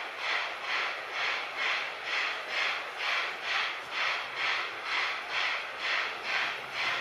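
JNR Class C10 steam tank locomotive chuffing steadily as it pulls away from a station, its exhaust beats coming evenly at about two a second.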